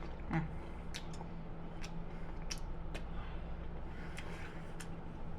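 Someone eating a forkful of chicken salad: faint wet mouth clicks and chewing, with a short closed-mouth "mm" about half a second in, over a steady low electrical hum.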